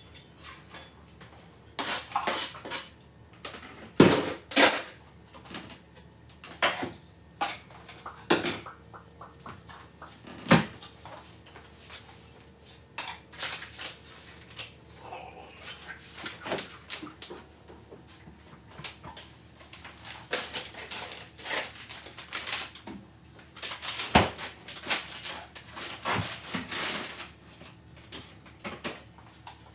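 Dishes, pots and cutlery clattering and clinking during kitchen clean-up: scattered knocks and clanks, the sharpest about four seconds in and again near twenty-four seconds.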